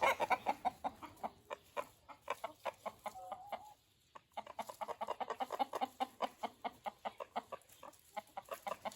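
Rooster complaining: a rapid string of short, sharp clucks, several a second, with a brief pause about four seconds in.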